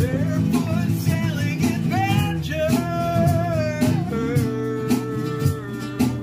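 Background music: a song with strummed acoustic guitar and a singing voice over a steady beat.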